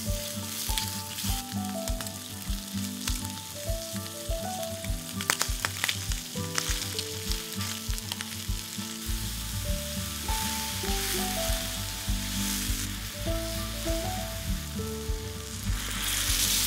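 Bacon and mushrooms sizzling in hot olive oil in a frying pan while they are stirred with chopsticks, with a few clicks against the pan. Near the end water is poured into the hot pan, giving a louder burst of hissing. Background music with a melody and a steady beat runs under it.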